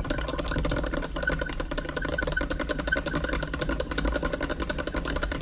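A thin metal stirring tool rattling against the inside of a small glass jar as paint is stirred briskly, making rapid, even clicking.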